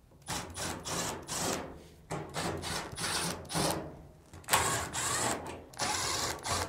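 Power screwdriver running in about six short bursts with a high whine, backing screws out of a Samsung dryer's front drum assembly.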